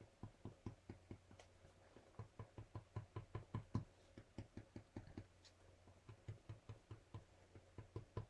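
Faint quick taps of an acrylic paint pen tip dabbing dots onto vinyl sticker paper, about five a second, with a few short pauses.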